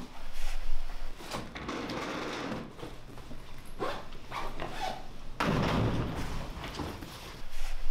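Students packing up and leaving a classroom: rustling of bags and clothing, knocks and bumps on desks, and shuffling footsteps, with a loud knock near the start and a longer rustling rush about five and a half seconds in.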